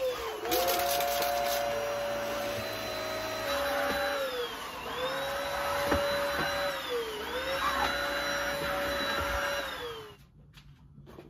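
Cordless stick vacuum cleaner running with a steady whine over the rush of suction air. Its pitch dips briefly and recovers a few times, and it winds down and stops about ten seconds in.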